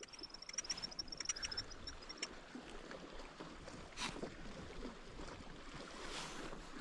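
A fishing reel whirring with rapid clicks for about the first two seconds as a hooked bass is fought, followed by faint splashes and knocks of water against a kayak, one clearer splash about four seconds in.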